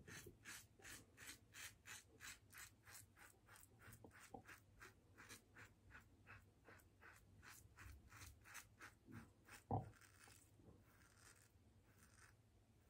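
Faint scratchy strokes of a King C. Gillette double-edge safety razor cutting through lathered stubble, about three short strokes a second, stopping after about nine seconds. A single knock follows about ten seconds in.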